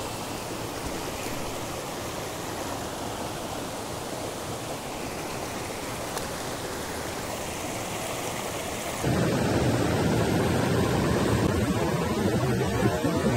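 Steady rushing of a small mountain stream's flowing water. About nine seconds in it abruptly turns louder, with much more low rumble.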